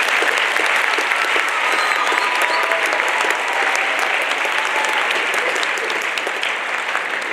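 School assembly audience applauding: dense, steady clapping from a large crowd, easing off slightly toward the end.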